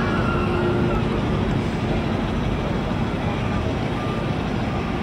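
Steady outdoor din of distant town traffic, with faint indistinct voices.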